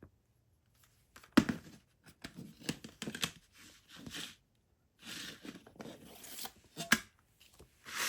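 Plastic wrapping on a CD being torn and crinkled in a run of short rips and rustles, with a couple of sharp clicks from the case.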